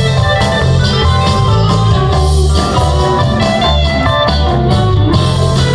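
Live rock band playing through a large PA, electric guitar over a heavy, steady bass line, heard from within the crowd.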